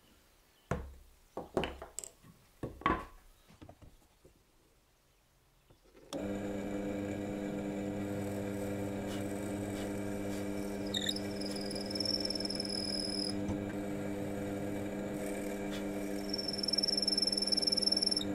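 A few light knocks in the first seconds, then a drill press motor starts about six seconds in and runs steadily with a low hum. Twice the bit bores into a wooden block, with a high whine each time.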